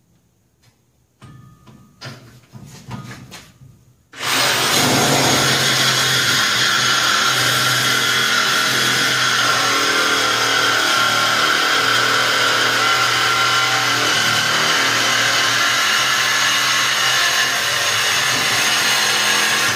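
A handheld power tool cutting through the old exhaust hangers under the truck. It starts about four seconds in and runs steadily, loud, until the end, after a few light knocks.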